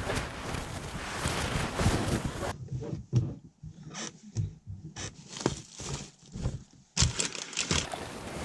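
Rummaging through plastic grocery bags and snack packets on shelves and in overhead cabinets: bags crinkling and rustling, with scattered knocks and clicks as things are moved.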